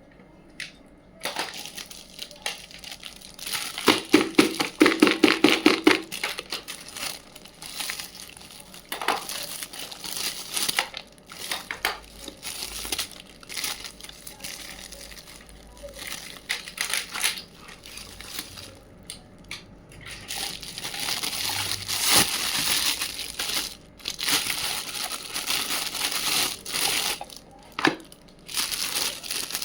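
Plastic packaging crinkling and small plastic toy pieces clicking and tapping as a miniature toy kitchen set is unboxed. A burst of rapid clicking about four seconds in is the loudest part.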